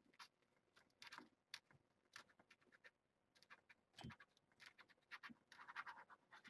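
Faint scratching, scrabbling and tapping of kittens playing: many short scratchy clicks and scrapes, a soft thump about four seconds in, and a longer scratchy rustle near the end.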